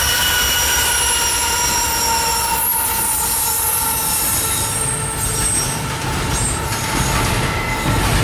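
Union Pacific double-stack container freight train passing close by: a steady high-pitched squeal with the locomotive's rumble, the squeal fading about five seconds in as the stacked container cars roll past with a low rumble.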